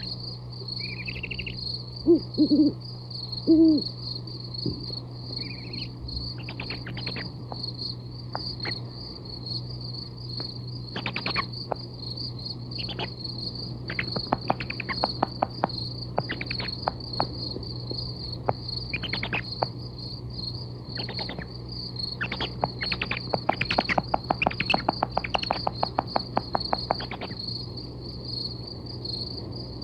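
Recorded night-ambience sound effect: crickets chirping steadily throughout, with three short, loud, low hoots about two to four seconds in. Later come scattered runs of short clicks, densest near the end, all over a steady low tape hum.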